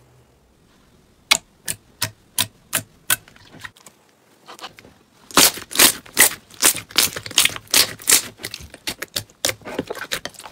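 Glossy pink slime being pressed and squeezed by hands in a bowl, popping and clicking. About a second in come evenly spaced sharp clicks, about three a second; after a short lull near the middle, a faster, denser run of loud pops and clicks follows.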